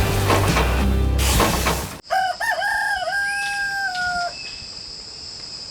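Music stops abruptly about two seconds in, and a rooster crows once: a few short notes, then one long held note that drops slightly at the end. A steady high-pitched tone, like insects, runs on behind it.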